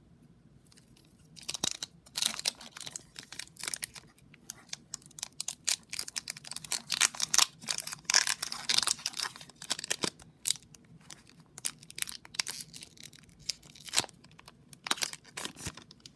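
Foil wrapper of a Pokémon Sun & Moon booster pack being torn open and crinkled by hand, a dense run of crackling and rustling that starts about a second and a half in and thins out near the end.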